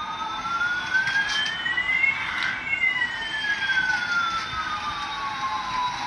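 Electronic siren-like sound effect: two whistling tones glide slowly in opposite directions, one rising and one falling. They meet a little over two seconds in, then swap and pull apart again.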